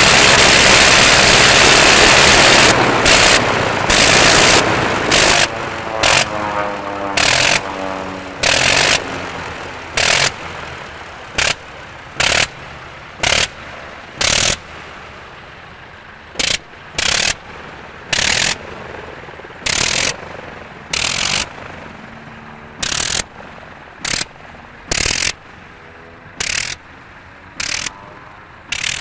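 Engine of a Blériot-type early monoplane running steadily close by. From about three seconds in it fires in short bursts about a third of a second long, roughly one a second with uneven gaps, and grows fainter as the aircraft moves away.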